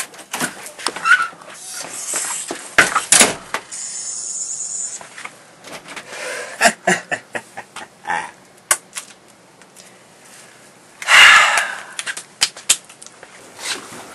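An irregular series of knocks, clicks and rustles from things being handled, with a short, loud burst of rustling noise about eleven seconds in.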